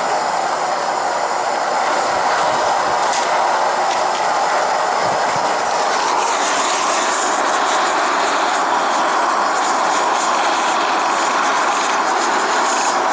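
Homemade blast furnace's burner flame running, a loud, steady rushing noise with no change in pitch.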